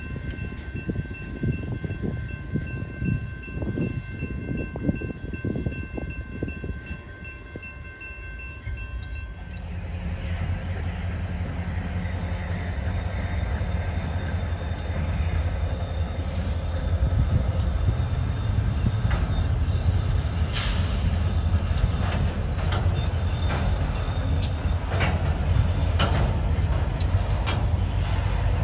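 A train with a diesel locomotive running. For the first third there are a few steady high tones over an uneven low rumble. After an abrupt change, the locomotive's engine drones low and steady and grows louder, with a run of sharp clicks in the second half.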